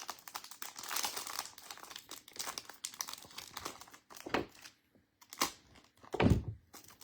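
Foil trading-card pack wrapper crinkling and tearing as a pack is opened, with a few soft knocks and one heavier thump near the end.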